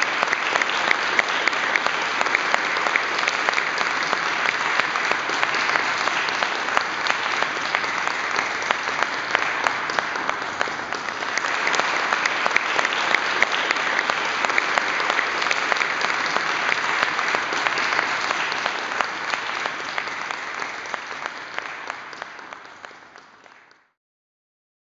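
An audience applauding at length, easing a little about ten seconds in, swelling again, then fading away near the end.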